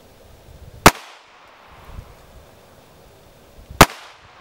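Two shots from a Volquartsen ENV-9 .22 LR rimfire pistol firing Fiocchi high-velocity rounds, one about a second in and one near the end. Each is a sharp crack with a brief echo.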